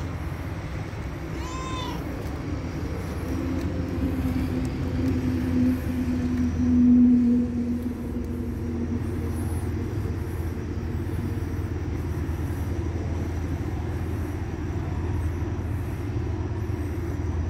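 A domestic cat meows once, about two seconds in, over a steady low hum. In the middle a droning tone, the loudest sound here, swells and fades.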